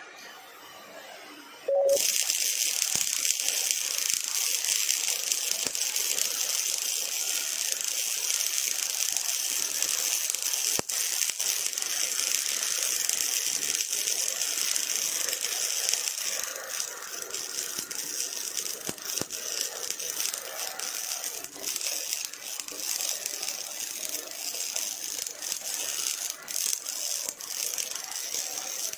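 MIG welding arc from an OTC welding robot on steel, striking suddenly about two seconds in and then crackling and hissing steadily. About halfway through it turns a little quieter and more uneven, with more spitting pops.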